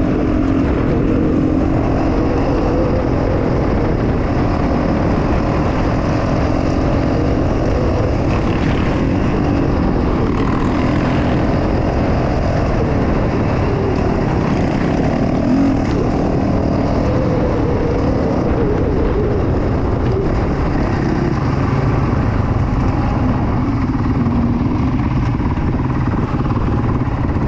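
Off-road motorcycle engine running under way on a dirt track, its note rising and falling a little with the throttle, over a steady rush of wind and road noise.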